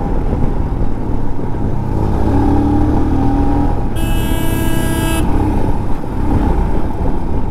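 Royal Enfield Himalayan single-cylinder motorcycle engine running at road speed, with wind and road noise. About four seconds in, a horn sounds once for just over a second.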